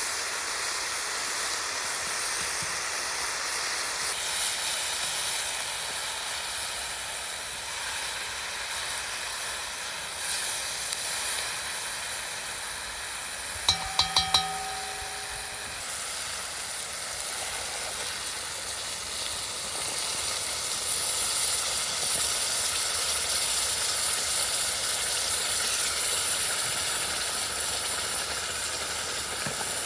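Meat sizzling over an open campfire, a steady hiss that grows a little louder in the second half. About halfway through, three quick ringing clinks sound close together.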